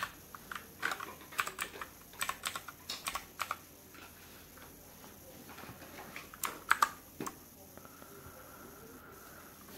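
Keys of an RK61 mechanical keyboard with blue switches being pressed one at a time, each a sharp click, in small irregular clusters, busiest in the first few seconds with a few more presses later on.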